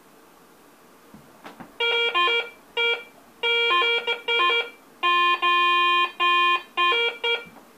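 Garrett ACE 350 metal detector sounding a run of choppy electronic beeps as a target is passed over its coil, the pitch jumping between a low tone and a higher one. The target is most likely the rusted nail, and this broken, mixed low-and-high signal is typical of rusty iron.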